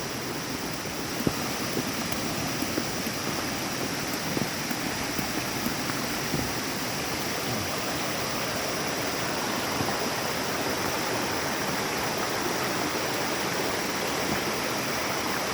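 Steady rushing of water in a forest river, with a few faint knocks in the first half.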